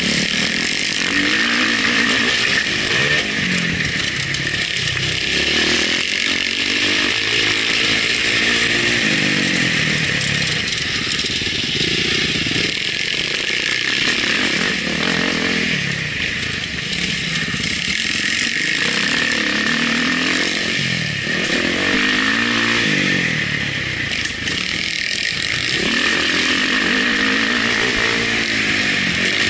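Motocross dirt bike engine heard from the rider's onboard camera, revving up in repeated rising sweeps and dropping back between them as the rider accelerates, shifts and rolls off. A steady high rush sits over it the whole time.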